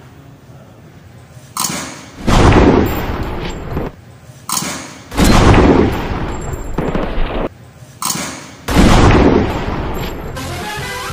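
Three loud sniper rifle shots from a film soundtrack, about three seconds apart, each with a softer crack just before it and a long echoing decay.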